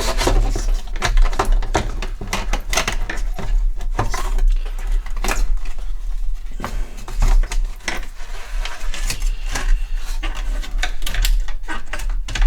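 Hands working parts out of a home computer's case: irregular rubbing, scraping and clicking of plastic and metal parts being handled and pulled free.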